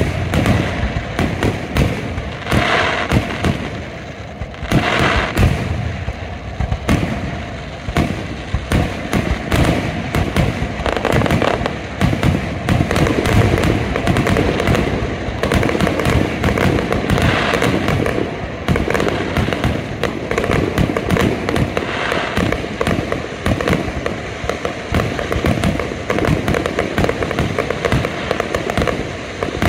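Aerial fireworks display: a dense, unbroken run of bangs and crackles, many shells bursting each second.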